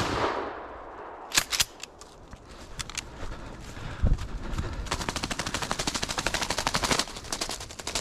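A shotgun blast right at the start, its echo rolling away down the wooded trail, followed by two sharp mechanical clicks about a second and a half in. Later a fast, even rattling in dry leaves runs for about two seconds.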